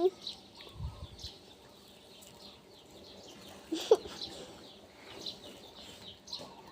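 Small birds chirping faintly and repeatedly, with one brief sharp squeak about four seconds in.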